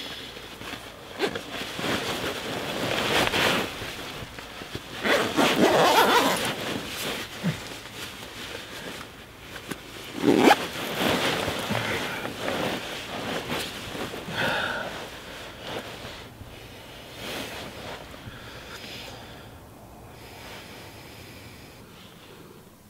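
Nylon sleeping bag rustling in irregular bursts as a person shifts and settles inside it, loudest about five seconds in and again around ten seconds, dying down near the end.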